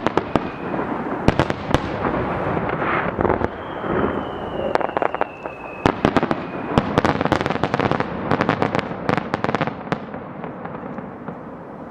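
Aerial firework shells bursting in a rapid series of sharp bangs over dense crackling, busiest in the second half and thinning out near the end.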